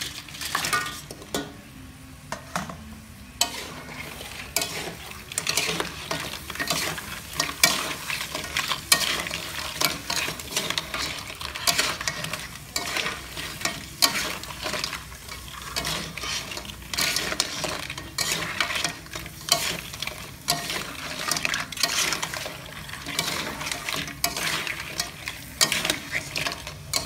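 Crab pieces being stir-fried in an aluminium wok: a metal spatula and spoon scrape and clink against the pan over a continuous sizzle, with a short lull a couple of seconds in.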